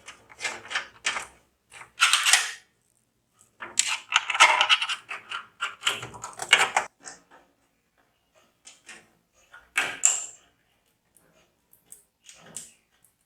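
Irregular clicks, clacks and short rustles of computer hardware being handled and fitted together, with the loudest bursts about two, four to five, and six to seven seconds in.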